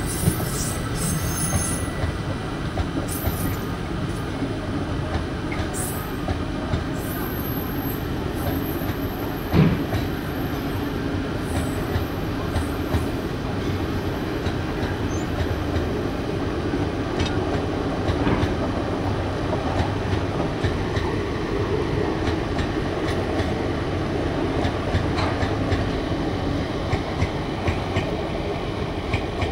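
Indian Railways passenger coaches running on the track as two trains pass each other: a steady rumble with the clatter of wheels over rail joints. A sharp clack comes about ten seconds in, and a faint thin high whine runs for a few seconds in the first half.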